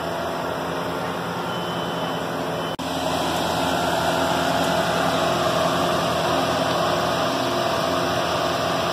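A steady mechanical hum with a hiss over it, broken by a split-second dropout about three seconds in, then running on slightly louder.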